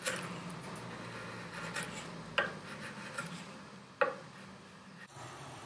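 Sharp bench chisel paring a chamfer off the corner of a wooden block by hand, a shaving curling off with a dry scraping hiss. Two sharp clicks follow, one about halfway through and a louder one about a second and a half later.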